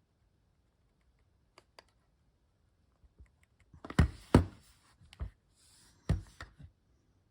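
Pentax IQZoom 130M point-and-shoot film camera being operated: a few faint button clicks, then loud clicks of the shutter firing with brief whirs of the motor advancing the film, about four seconds in and again about six seconds in.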